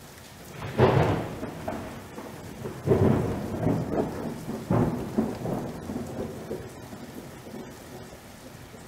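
Thunder rolling over steady rain: three claps, the first about a second in and the others about two seconds apart, each rumbling away slowly.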